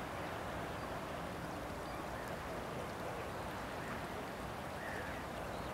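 Steady outdoor background noise by the river, with a few faint bird calls, one of them about five seconds in.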